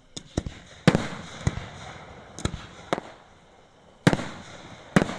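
Fireworks display: about eight sharp bangs of fireworks bursting at uneven intervals. The loudest come about a second in, about four seconds in and near the end, and each is followed by an echoing tail.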